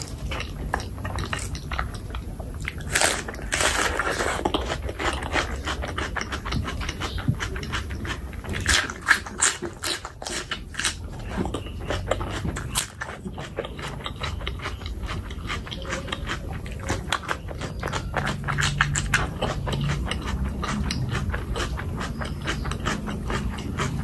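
Close-miked eating sounds from a mouthful of rice and chicken skin curry eaten by hand: wet chewing, lip-smacking and many small clicks and squelches. A low hum joins in near the end.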